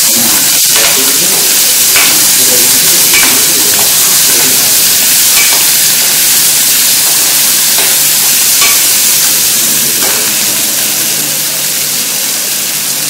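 Chopped onions and green chillies sizzling loudly and steadily as they fry in a steel kadai. A steel ladle stirs them, scraping and clinking against the pan now and then.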